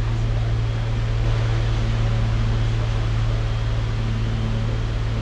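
A running machine giving a steady low hum under a constant hiss, unchanging throughout.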